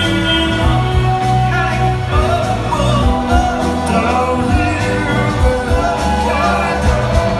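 A live band playing with a lead vocal: drums, bass, electric guitars and bowed violins together.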